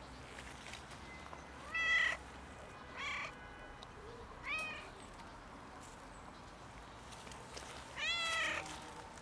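Tabby-and-white stray cat meowing: three short meows in the first five seconds, then a longer one near the end.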